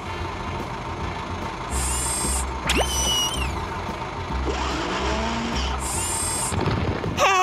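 Cartoon excavator sound effect: a steady mechanical whirring, ratcheting machine noise as the digger drives on its tracks and works its boom, over background music. A short rising whistle-like effect sounds about three seconds in.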